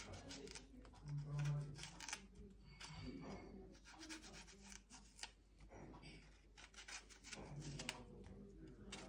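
Kitchen knife scraping and slicing through dragon fruit skin as it is peeled, a faint run of short, irregular scrapes. A brief low hum about a second in.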